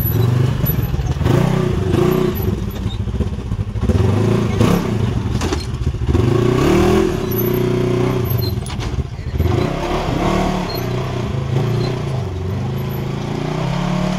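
Polaris RZR side-by-side's 1000 ProStar twin-cylinder engine revving up and down in repeated throttle blips as the machine crawls over large boulders. The machine climbs the rocks with ease.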